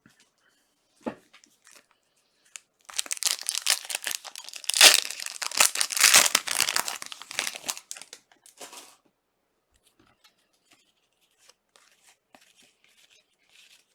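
Trading card pack wrapper being torn open and crinkled: a loud stretch of tearing and rustling starting about three seconds in and lasting some five seconds, then a shorter rustle and faint crackles.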